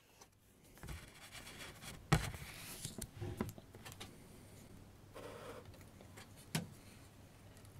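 Sheets of paper rustling and sliding on a table as a second sheet is laid in place, with a knock about two seconds in and a sharp tap at about six and a half seconds.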